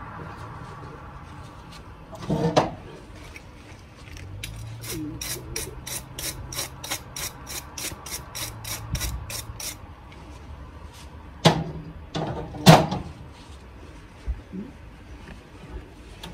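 A run of about twenty even, sharp clicks, about four a second, like a ratchet being worked, with a knock before it and two loud sharp knocks after it.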